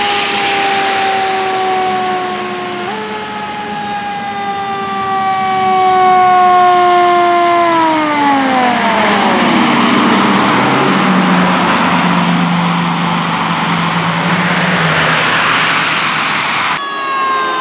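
Fire truck siren sounding as the truck goes by: a steady tone that slides slowly down in pitch, then drops steeply about eight seconds in. Loud engine and road noise follows. Near the end the sound changes abruptly to another siren that falls, then starts to rise.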